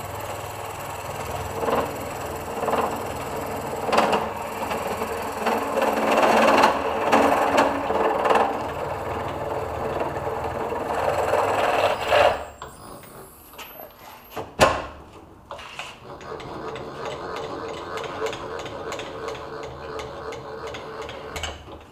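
Milling machine spindle running with an end mill taking a light cleanup cut inside a tube's bore: a steady motor hum under a grinding cut with uneven knocks. About twelve seconds in the cutting stops and the spindle runs on more quietly, with one sharp click soon after.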